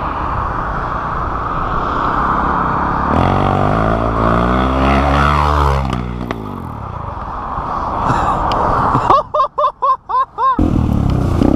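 Motorcycle engines running under heavy wind rush on a helmet-mounted camera. A few seconds in, an engine revs up and down as the second bike wheelies alongside. Near the end, the sound cuts out briefly several times.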